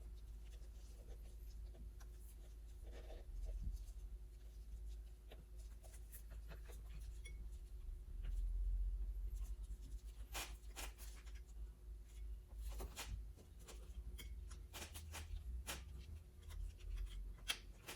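Faint handling noise of engine parts being fitted and pressed into place: scraping, rubbing and scattered sharp clicks over a low steady rumble, with clusters of clicks about ten seconds in and again near the end.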